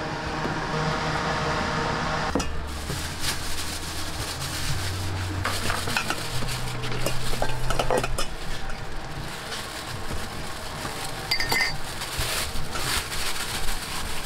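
Metal spatula clanging and scraping against a wok as seafood fried noodles are stir-fried, with food sizzling under it.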